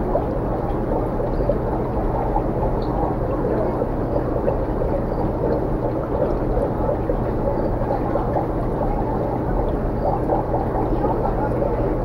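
Aquarium aeration and filtration running: a steady watery rushing noise over a constant low hum.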